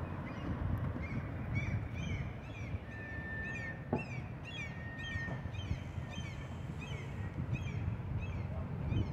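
A flock of birds calling over and over in short, arching cries, two or three a second, above a steady low rumble of outdoor background noise.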